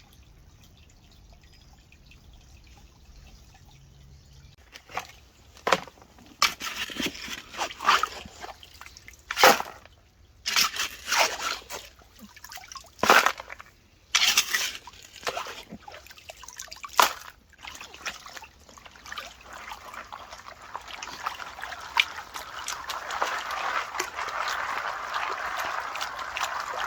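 Stream water sloshing and splashing in a series of short bursts as gravel is washed through a gold-panning classifier, followed by a steady, growing trickle of water draining through it over the last several seconds.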